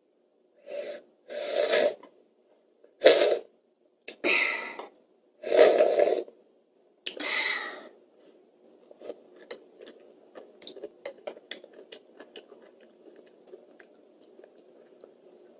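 A child slurping noodles in six short, loud, breathy bursts over the first eight seconds. After that come many soft, rapid clicking chewing sounds.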